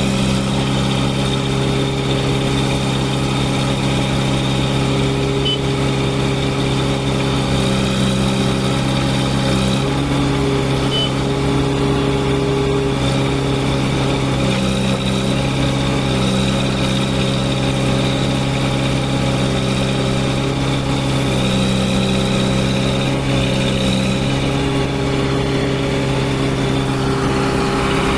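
Kirloskar diesel engine of a JCB 3DX backhoe loader running steadily at a constant speed, its pitch hardly changing.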